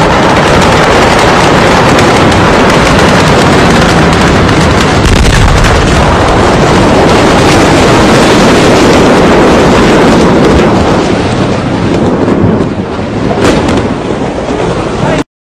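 Massive ammonium nitrate warehouse explosion heard at close range: a loud, overloaded roar that holds for about ten seconds, then eases off and breaks up, with a few sharp cracks near the end.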